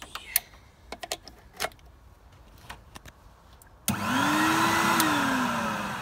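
A few scattered clicks and knocks, then about four seconds in a Numatic Henry vacuum cleaner's motor starts suddenly and runs loud and steady, its whine rising and then falling back. The motor runs perfectly.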